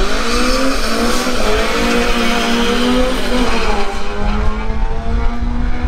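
Race car accelerating hard down a drag strip, its engine note climbing, dipping at a gear change about four seconds in, then climbing again.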